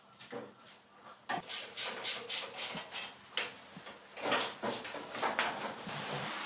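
A bucket seat being fitted and fastened into a steel tube frame: a run of quick, irregular clicks and light knocks starting about a second in, with a few fuller knocks a little past the middle.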